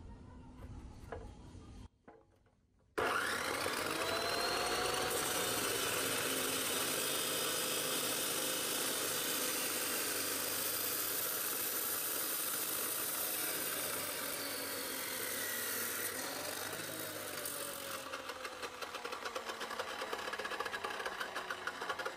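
A couple of soft clicks from the saw's vise being tightened, then a Makita M2400B 2000 W, 355 mm abrasive cut-off saw starts with a rising whine and grinds steadily through a square steel tube. Near the end the grinding turns pulsing and the motor's hum falls away.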